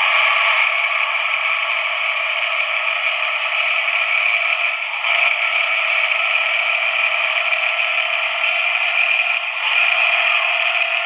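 Swiftlet lure recording of the rasping "ngorok" type, played through speakers as a steady, dense ratcheting chatter with no bass.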